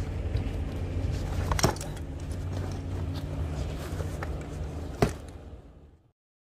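Small single-cylinder motorcycle engine idling steadily, with two sharp clicks, about a second and a half in and near the end, as luggage is handled on the bike; the sound fades out just before the end.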